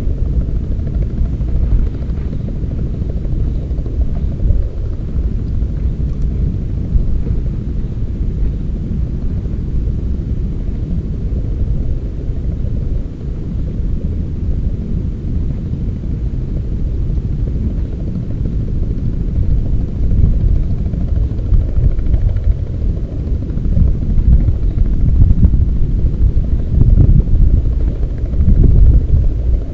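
Small fishing boat under way across calm sea: a steady low rumble from the boat's motor and its travel, with no clear pitch, growing a little louder near the end.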